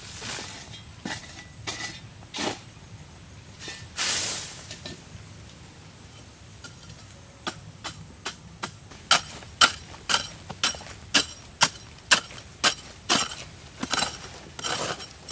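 Metal hoe blade chopping and scraping into dry, stony earth. A few scattered strokes in the first half, then a quick, even run of sharp chops about two a second.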